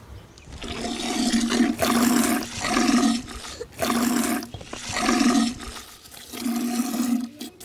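Water buffalo being milked by hand: jets of milk squirting into a metal vessel in regular hissing strokes about once a second, the vessel ringing with each stroke.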